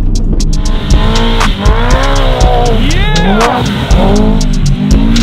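Subaru WRX's turbocharged flat-four engine revving, its pitch rising and falling again and again, as the car slides with its tyres spinning on frozen dirt. Background music with a steady beat plays underneath.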